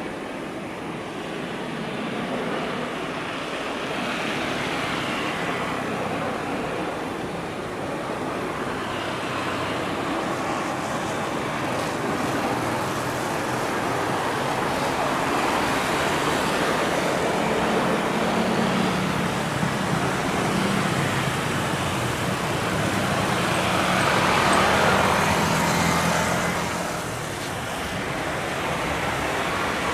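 Boeing 737-800's CFM56 jet engines during a landing, a steady rushing noise with a low hum that builds to its loudest about 25 seconds in, then drops off suddenly.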